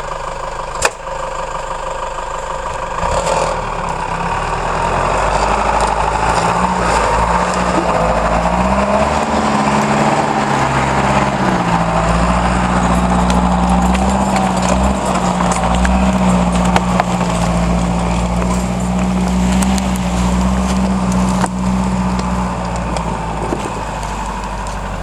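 Unimog 403's six-cylinder diesel engine running under load, its pitch rising and dipping a little, then holding steady before easing off near the end, with scattered sharp clicks and knocks.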